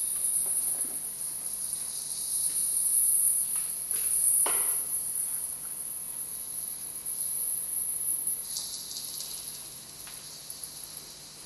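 Electroacoustic live-electronic sound from stage loudspeakers: a high hissing, shimmering texture with scattered faint clicks and one quick falling swoop about four and a half seconds in. It turns grainier and lower in the last few seconds.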